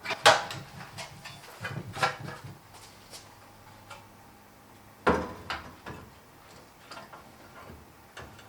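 Scattered metal clanks and knocks, the loudest about a quarter second in, two seconds in and five seconds in, as metal parts and tools are handled.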